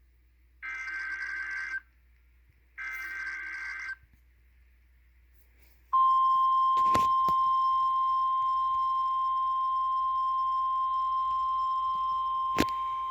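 NOAA Weather Radio Emergency Alert System activation: two short, buzzing bursts of SAME digital header data, each about a second long, then after a two-second pause the steady 1050 Hz warning alarm tone, starting about six seconds in, signalling an incoming severe thunderstorm warning. A couple of sharp clicks cut across the tone.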